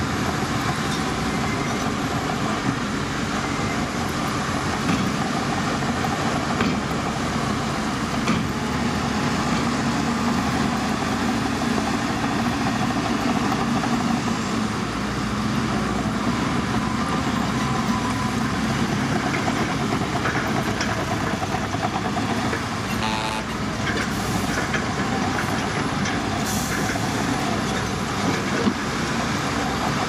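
Heavy diesel engines of several dump trucks and a bulldozer running together, a steady mixed drone of earthmoving machinery. Two brief high hisses come near the end.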